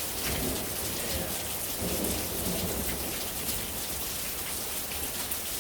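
Heavy rain falling, with a low rumble of thunder through the first half.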